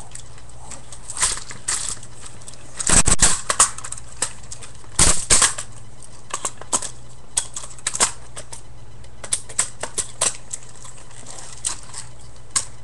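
Hard plastic parts of a Transformers Armada Optimus Prime toy being handled and transformed: clicking, snapping and clattering as pieces are split apart and folded into place. There are two louder spells of clatter about three and five seconds in, then scattered single clicks.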